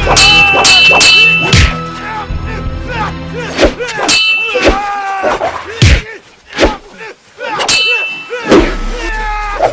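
Music: a wordless instrumental passage of an Afrobeat-style song, with bell-like chimes, sweeping pitch glides and sharp percussive hits over a sustained bass.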